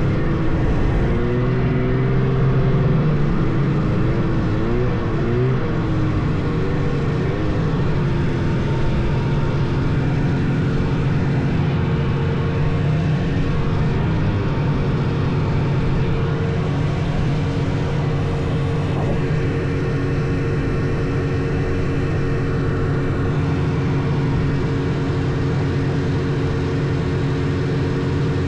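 Vintage snowmobile's two-stroke engine running at speed. Its pitch wavers up and down several times in the first eight seconds or so, then holds steady.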